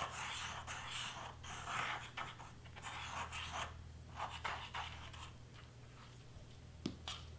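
Fine tip of a squeeze bottle of craft glue scratching along cardstock in short, repeated strokes as glue is laid down, over a low steady hum. The strokes stop about five and a half seconds in, and a single tick follows near the end.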